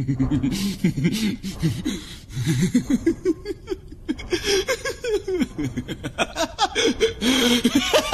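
A man's villainous laugh, dubbed for an anime character, in quick rhythmic pulses that start low and climb steadily higher in pitch.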